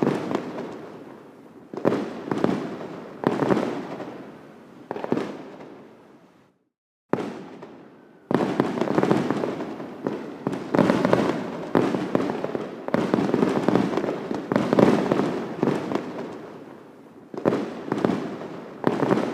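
Fireworks going off in a series of bursts, each fading away over a second or so. The sound cuts out completely for about half a second a third of the way in.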